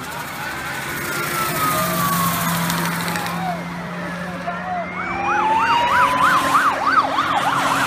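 Police car siren in a pursuit: a slow rising and falling wail, joined about five seconds in by a fast yelp of about three sweeps a second, over the rush of passing traffic.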